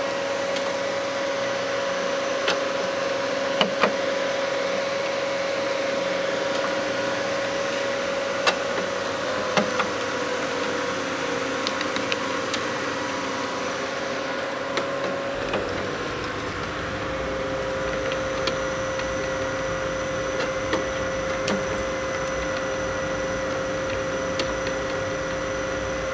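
The electric motor and belt drive of an automaton mechanism running steadily: a constant hum with a steady whine, and scattered clicks and knocks from the linkage rods and gears. A deeper rumble joins about halfway through.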